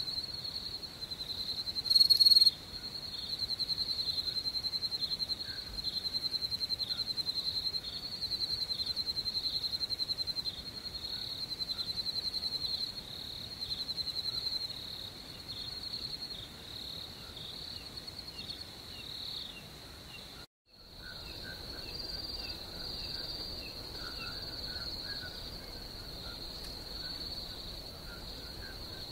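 Crickets chirping in a steady, high, pulsing trill, with fainter lower chirps underneath. One chirp is louder about two seconds in, and the sound cuts out for a moment about two-thirds of the way through.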